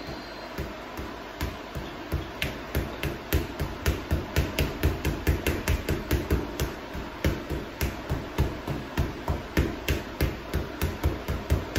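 Gloved fists punching a heavy punching bag: a few spaced hits at first, then a steady fast flurry of about three punches a second.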